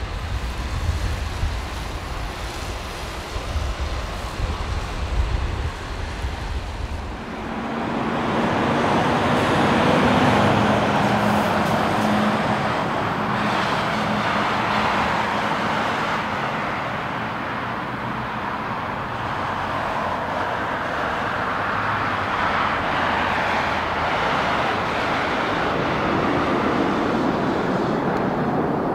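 Jet airliner engine noise at a runway. First comes a low rumble with wind on the microphone as a Boeing 767 freighter rolls on a wet runway. After a cut about seven seconds in, the jet noise grows louder and steady, with a low engine hum, peaking about ten seconds in, as airliners taxi and a Boeing 767-300F freighter lands.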